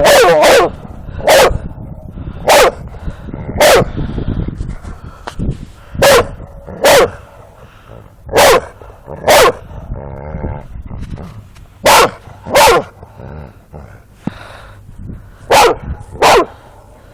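A dog barking: about a dozen loud, sharp barks, often in pairs, spaced a second or more apart.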